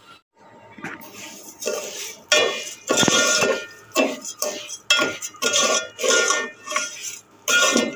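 A spoon scraping and clinking against a metal pot as granulated sugar is stirred into oil, in repeated strokes about once a second with a gritty rasp and a short metallic ring on each stroke.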